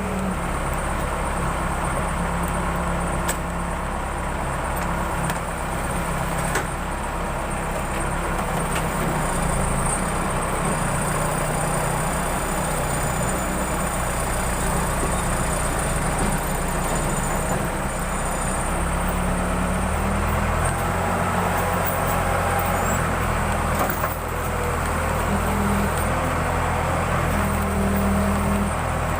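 Diesel engine of a Case 580 Super L backhoe running steadily under work, its note shifting about two-thirds of the way through.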